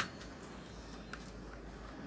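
A sharp click, then a much fainter one about a second later, as the opened induction cooker's parts are handled by hand.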